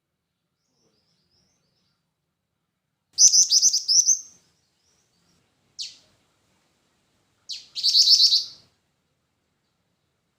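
Black-winged flycatcher-shrike (jingjing batu) calling: two bursts of rapid, high trilled notes, about three and eight seconds in, with a single short note between them.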